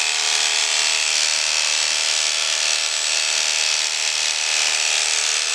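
Electric horse clippers buzzing steadily as they are run through a cob's thick winter coat.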